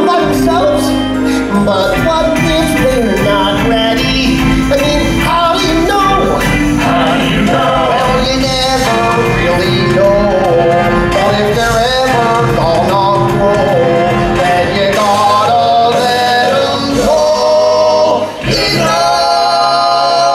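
A stage-musical song: a male voice and a chorus singing over a full band accompaniment.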